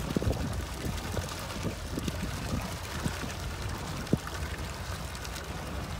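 Water sloshing and gurgling against a small boat's hull in short irregular splashes, over a low steady rumble.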